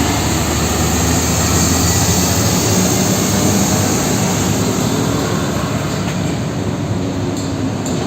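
A loud, steady vehicle engine sound effect, a rumble with hiss over it, that begins and cuts off abruptly, as for a toy tanker truck.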